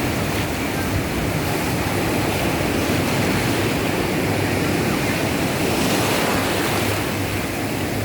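Ocean surf washing onto a beach, a steady rush of noise.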